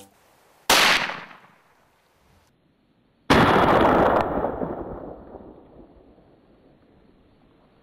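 Two hunting-rifle shots about two and a half seconds apart. The second rolls away for several seconds before fading.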